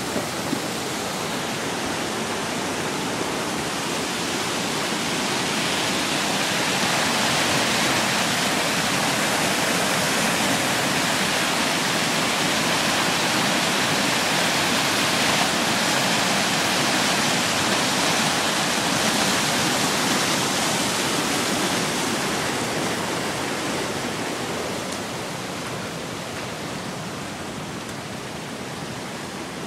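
Floodwater pouring over a mill dam's spillway: a steady rush of churning white water that grows louder, then fades gradually over the last several seconds.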